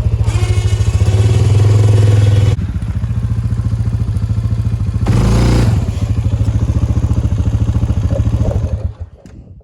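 Four-wheeler (ATV) engine running with a steady, even pulse, revving up twice, briefly. It stops about nine seconds in.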